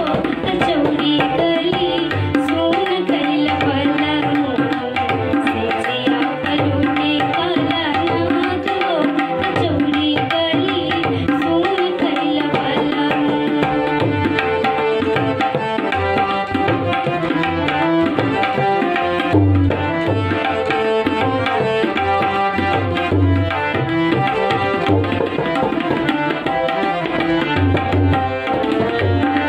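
Instrumental interlude of a Bhojpuri folk song: a steady drum rhythm under a sustained melody, with no singing.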